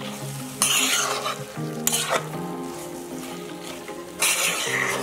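Boiled green moong beans being stirred into frying tomato-onion masala in a pan with a spatula: scraping strokes about half a second in and again near the end, over a light sizzle.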